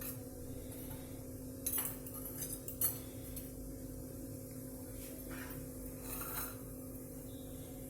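A few faint clinks and knocks of kitchen dishes and utensils being handled, over a steady low hum.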